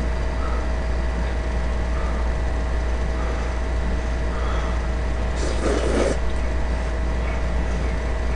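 Steady low hum, with one short slurp of noodles about five and a half seconds in.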